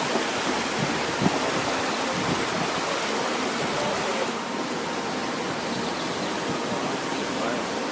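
Steady rush of fast-flowing floodwater, an even continuous roar that eases slightly in its hiss about four seconds in.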